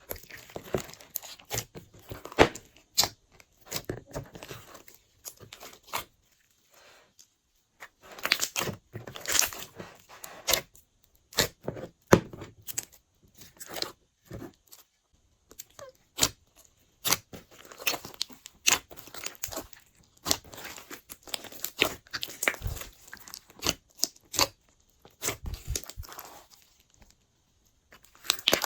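Hands kneading and stretching glossy slime, giving off irregular sticky pops, clicks and crackles with a few short pauses.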